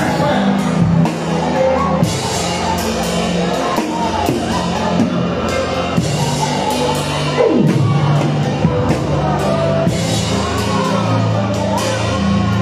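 Band music with a drum kit, held bass notes and singing, with a falling glide in pitch about halfway through.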